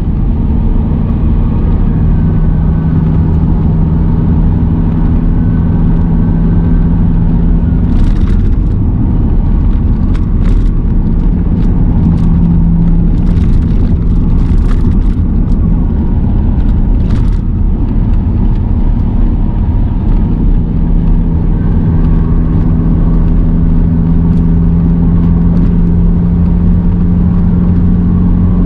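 Car cabin noise while cruising at highway speed: steady tyre and road rumble with a droning engine note. Between about 8 and 17 seconds in, a scattering of short sharp knocks cuts through.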